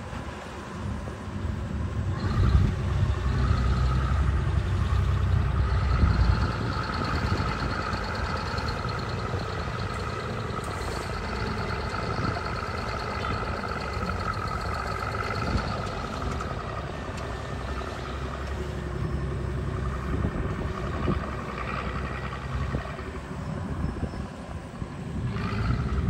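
Small Komatsu crawler bulldozer's diesel engine working under load as the blade pushes soil, a steady low rumble that is heaviest in the first few seconds, with a steady high whine over it.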